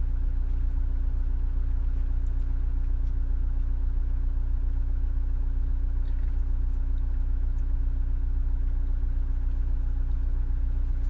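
Car engine idling steadily, a constant low hum heard from inside the cabin.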